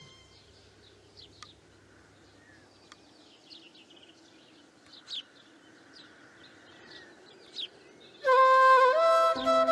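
Faint small-bird chirps, a few scattered calls over quiet surroundings. About eight seconds in, a bamboo flute starts a loud melody, its notes sliding from one pitch to the next.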